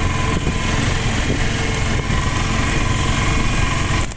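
Auto-rickshaw's small engine running steadily under way, heard from inside its open passenger cabin, with road noise.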